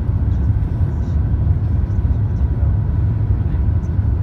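Airliner cabin noise on approach to landing: a steady low rumble of engines and airflow heard from a window seat, with a faint steady whine over it.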